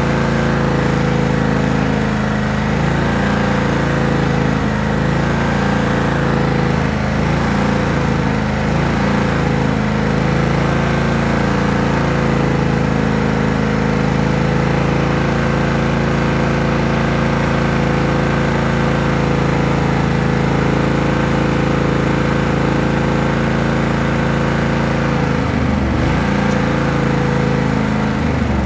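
Riding lawn mower's engine running steadily at an even speed.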